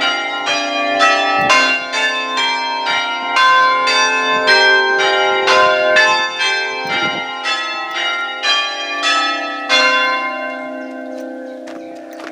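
Six church bells chimed by an Ellacombe apparatus, its hammers striking the stationary bells in a steady run of about two strokes a second. The strokes stop about ten seconds in, and the bells hum on as they die away.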